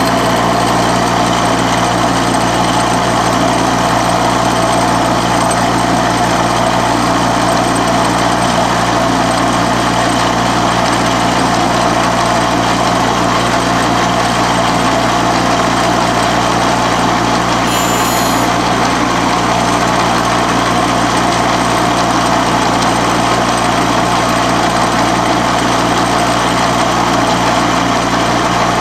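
Lagun milling machine running steadily while an end mill, driven through a 90-degree spindle adapter, takes the finish cut on a metal cam track. A steady mechanical hum with cutting noise, and one brief high-pitched sound about two-thirds of the way through.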